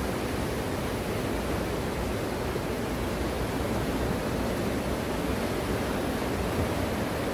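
Small waves breaking and washing onto a sandy beach: a steady rushing surf noise with no clear rise and fall between waves.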